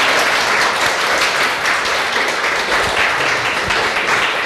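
Audience applauding: many hands clapping in a dense, steady patter at the end of a talk.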